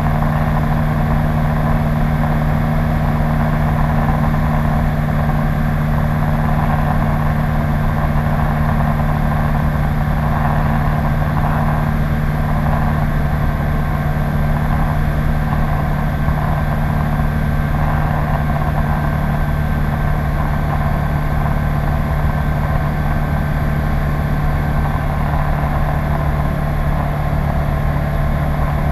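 Czech Sport Aircraft PS-28 Cruiser's Rotax 912 engine and propeller running at a steady power setting, a constant drone that holds one pitch.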